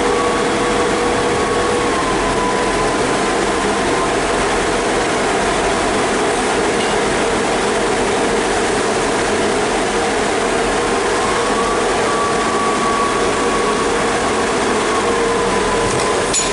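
Class 159 diesel multiple unit's underfloor Cummins diesel engines running loudly under power as the coupled units pull away: a steady drone with a higher whine that wavers slightly in pitch.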